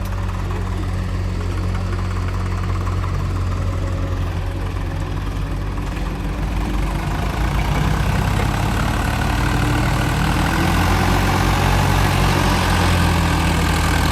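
Heavy diesel engine running steadily, growing louder and harsher from about halfway through, then dropping off sharply at the very end.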